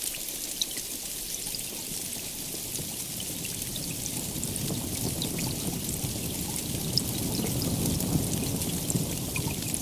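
Steady heavy rain, a dense hiss with the ticks of single drops, and a low rumble of distant thunder that builds in the second half.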